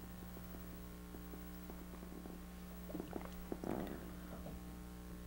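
A woman sipping water from a small glass and swallowing, with a few soft sounds about three to four seconds in, over a steady low electrical hum.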